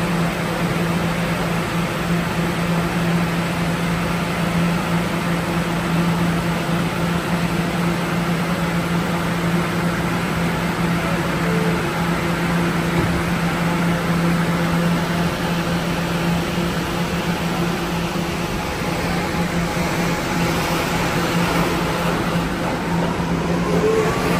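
New York City subway R211A train standing at a station platform, its onboard equipment giving a steady low hum over a constant rushing noise. Near the end a rising whine and growing rush come in as a train gets moving.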